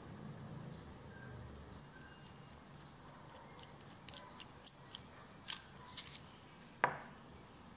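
Metal barrel of a Pelikan Pura P40 fountain pen being unscrewed from the grip section: a run of small ticks and clicks from the threads as it turns, with several sharper clicks about halfway and one louder click near the end.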